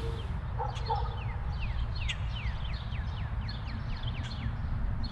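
Animal calling: a run of short, high chirps, each falling in pitch, about three a second, over a steady low rumble.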